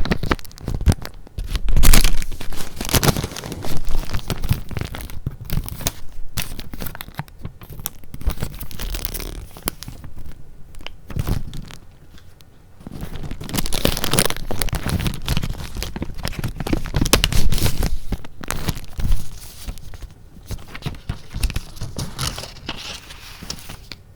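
Paper being handled close to the microphone, with dense crinkling and rustling and some tearing. The sound comes in uneven bursts, eases off for a moment about halfway through, then picks up again.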